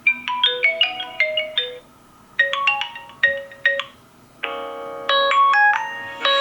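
A built-in Vivo Y52 5G ringtone playing: short melodic phrases of quick, bright, bell-like notes with brief pauses between them, the last phrase over a held tone.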